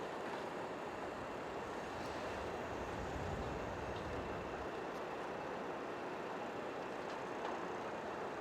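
Steady city street noise: traffic running, with a low rumble swelling briefly about three seconds in.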